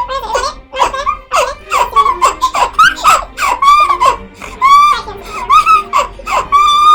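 A person laughing hard in a run of high-pitched bursts, about two a second, ending in a longer held squeal near the end.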